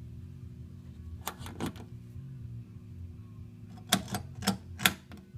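Selector and range switches on a vintage Sprague Tel-Ohmike capacitor tester clicking as it is switched from the leakage test to capacitance: a pair of clicks about a second and a half in, then a quicker run of four sharper clicks near the end. A steady low hum runs underneath.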